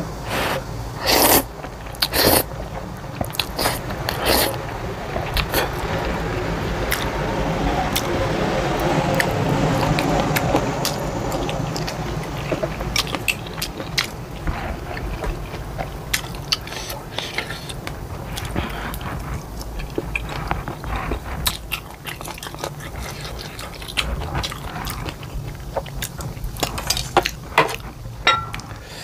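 Close-miked eating: glass noodles slurped into the mouth, then steady wet chewing with many small lip smacks and clicks.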